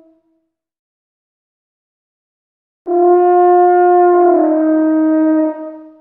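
Silence, then about three seconds in a recreated Parasaurolophus call: one long steady horn-like tone that drops slightly in pitch partway through and fades out near the end.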